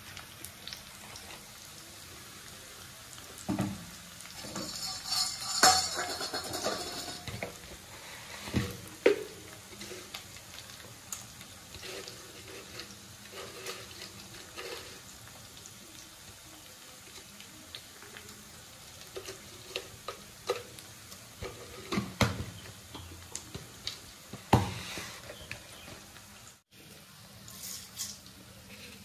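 Kitchen handling sounds at an open aluminium pressure cooker as oil goes in and whole spices are added: scattered knocks and clinks of utensils and containers against the pot, several seconds apart, with a short hissing stretch about five seconds in.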